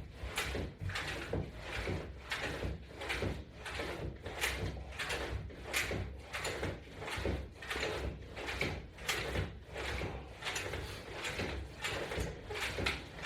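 Steady rhythm of short swishing sounds, about two a second, from repeated side crunches pulling against a resistance band.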